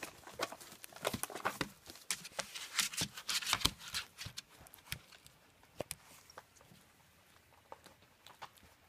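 German shepherd puppies eating from steel bowls and scrabbling on newspaper: a busy run of quick clicks and paper rustles for the first half, thinning to a few soft ticks.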